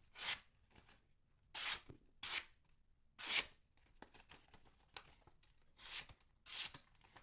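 Short hissing strokes of a freshly sharpened Frost Cutlery folding knife's blade being drawn along, six strokes mostly in pairs, with pauses between.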